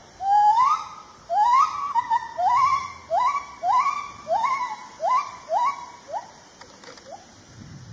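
Lar (white-handed) gibbon calling: about a dozen rising whoops that come quicker and shorter, then fade, in the pattern of a gibbon great call.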